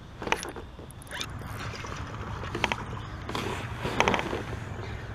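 Handling noise on a fishing kayak: a series of clicks, knocks and short rattles from rod, reel and landing net against the plastic hull, over a steady low rumble.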